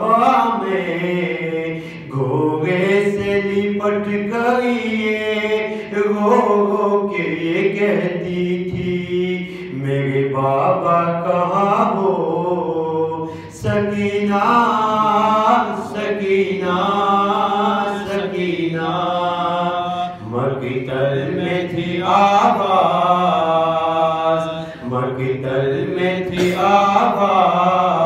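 A man chanting a marsiya, an Urdu elegy, solo and unaccompanied. He sings it in long melodic phrases of several seconds each, with a brief pause between phrases.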